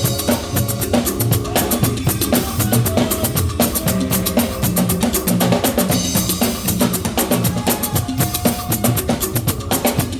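Live church band playing an upbeat instrumental passage: a drum kit with snare and kick keeping a fast, steady beat over bass guitar and keyboard, with no singing.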